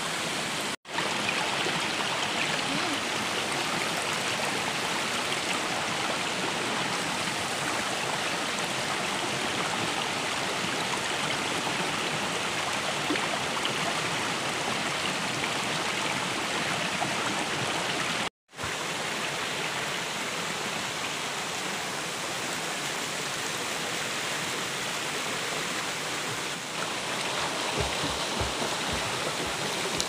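Steady rush of water from a rocky forest stream and small waterfall, which cuts out twice very briefly.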